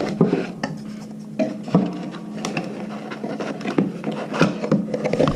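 Hands rummaging through a cardboard product box and its packaging: irregular rustling, rubbing and light clicks and knocks. A faint steady hum runs underneath.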